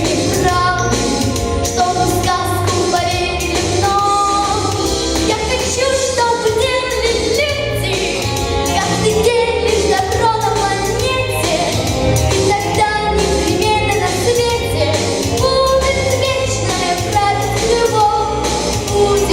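A song sung over a pop backing track with a steady bass beat.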